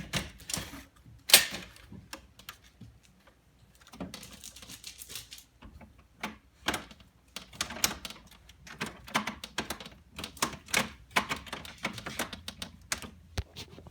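Irregular clicks, taps and rattles of hard parts being handled while assembling a pachislot machine, with one sharp knock about a second in as the loudest sound and a short stretch of scraping around four to five seconds in.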